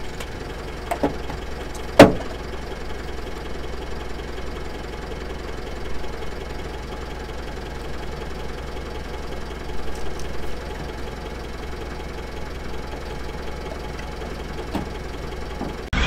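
Mitsubishi L200 pickup's engine idling steadily while the truck stands stuck, with one sharp snap about two seconds in and a few faint knocks.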